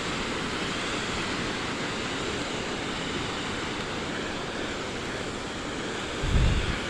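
Steady roar of Tumalo Falls, a waterfall. A brief low rumble comes about six seconds in.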